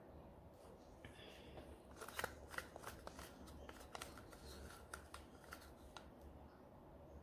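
Faint clicks and scrapes, mostly from about two seconds in to about six, as a wooden stir stick scrapes resin out of a plastic cup handled in plastic gloves.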